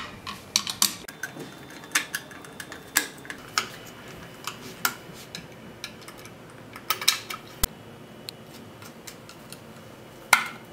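Screws being driven with a hand screwdriver into the plastic centre plate of an electric iron: irregular small clicks and light clinks of the metal tip and screws against the plastic housing, a few louder ones about seven seconds in and near the end.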